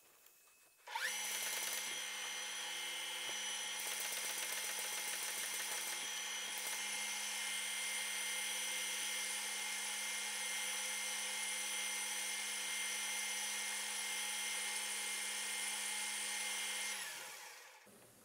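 Metal lathe starting up about a second in, its spindle and motor running with a steady whine for about sixteen seconds, then switched off and spinning down with falling pitch near the end.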